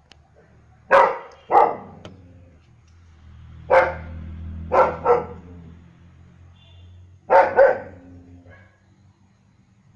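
German shepherd barking: seven loud, short barks, mostly in quick pairs, with pauses of a second or two between the groups.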